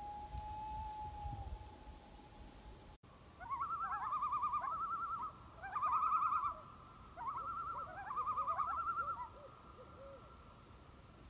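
Common loon calling: the end of a long wail held on one pitch, then, after a cut about three seconds in, three bursts of rapid wavering tremolo calls over a steady tone.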